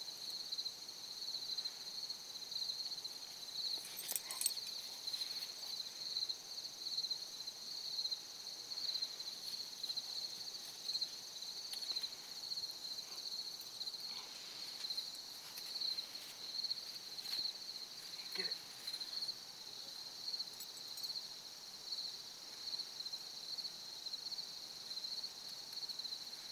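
Crickets chirping in a steady chorus, a constant high pulsing trill, with a few faint brief clicks and rustles over it.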